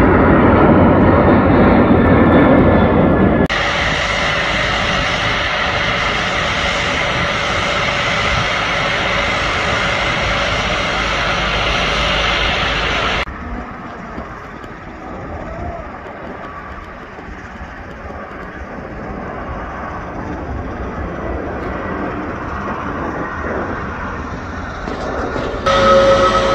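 Jet airliner engine noise in several abrupt cuts. First comes the heavy roar of a departing jet climbing out, then a brighter steady rush, and a quieter stretch as an Airbus A321 comes in to land. Near the end there is the whine of an airliner's engines taxiing, with clear steady high tones.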